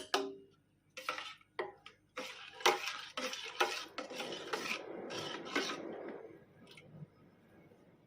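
A metal spoon knocking and scraping against a metal cooking pot: one sharp ringing clink, then about five seconds of irregular stirring and scraping strokes that die away.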